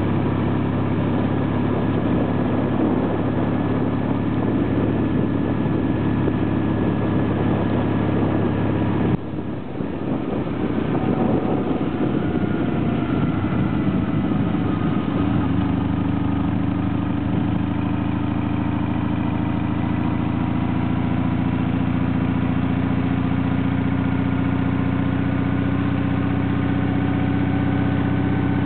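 Flat-twin sidecar motorcycle engine running under way at a steady speed. About nine seconds in it briefly drops off, then pulls again and slowly rises in pitch.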